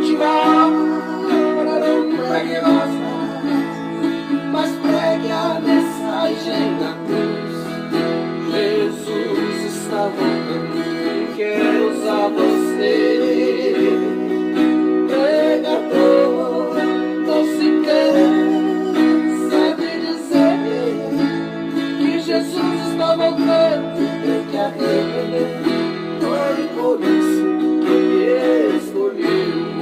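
Viola caipira playing a gospel song's melody over sustained chords that change every few seconds.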